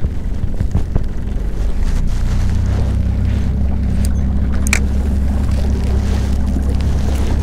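A boat's motor running at a steady low hum that grows stronger about two seconds in, with wind buffeting the microphone. A single sharp click comes about halfway through.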